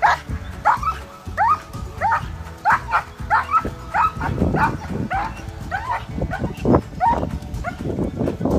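A dog yipping in short, high yelps that rise in pitch, about two a second, thinning out near the end.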